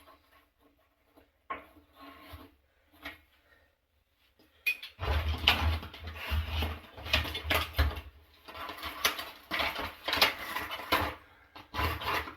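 A few light clicks and handling sounds, then from about five seconds in quick, repeated scrubbing or scraping strokes on the water heater, as the area around its element and thermostat is cleaned by hand.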